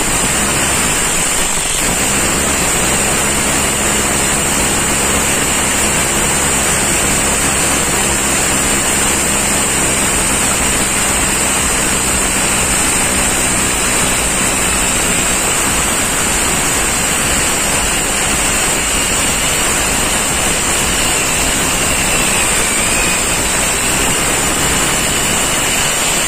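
Rotary hammer drill running steadily with a long masonry bit, boring the door-bolt hole through a sheet-steel door frame.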